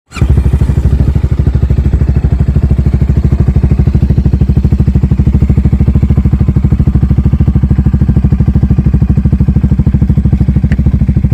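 Italika Vortx 300 motorcycle engine idling, a steady, even exhaust pulse that does not rise or fall.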